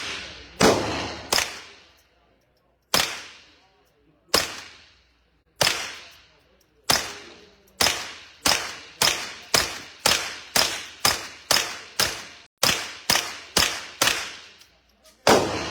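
A string of about twenty gunshots, each followed by a short echoing decay. The shots are spaced one to one and a half seconds apart at first, then come quickly at about two a second from around halfway through.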